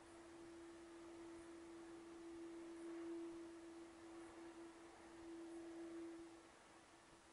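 Faint steady single-pitched hum over low hiss. It swells and fades a little, then weakens about six and a half seconds in.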